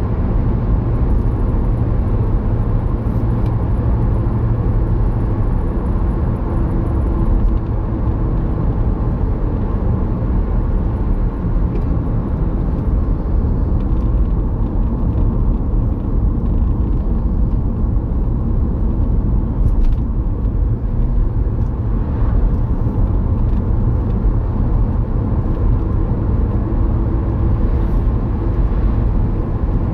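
Road and engine noise inside a moving car, a steady low rumble at about 40 to 55 mph.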